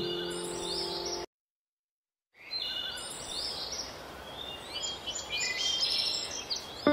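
Background music ends about a second in and drops to complete silence, then a recording of birds chirping over a steady outdoor hiss.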